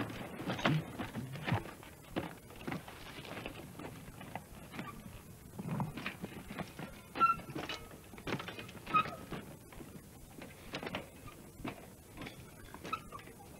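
Mountain bikes ridden over rocky ground: irregular clattering and knocking of wheels and frames on rock, with a few short high chirps.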